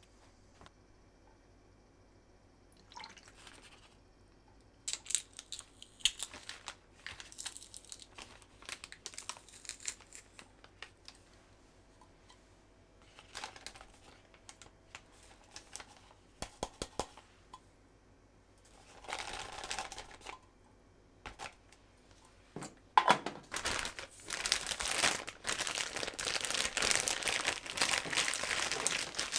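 Crinkling of packaging being handled, in short spells with small clicks, becoming continuous near the end.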